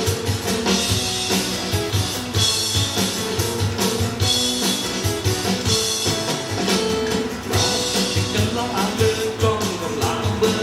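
Band music with drums and guitar, played back through Genesis Naptune GT65.2 two-way component car speakers on their original passive crossover, with no EQ.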